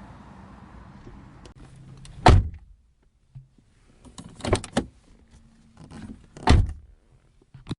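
Car doors being shut: a heavy thunk a little over two seconds in, a quick run of clicks and knocks around four and a half seconds, and a second heavy thunk near six and a half seconds, with a faint steady hum before the first one.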